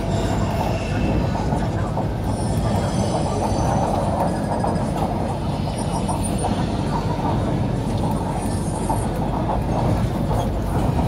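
Interior running noise of an MTR Kwun Tong Line CRRC Qingdao Sifang Q-train at speed: a steady rumble of the wheels on the track, with faint high whines coming and going a few times.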